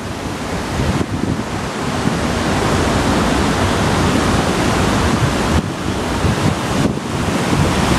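Shallow floodwater of the Oued Souss rushing over stones and rubble in its riverbed, a steady noise, with wind buffeting the microphone.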